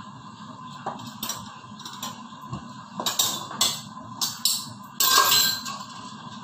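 Kitchen knife knocking on a wooden cutting board as squash is cut, with dishes clinking on the counter. A louder clatter comes about five seconds in.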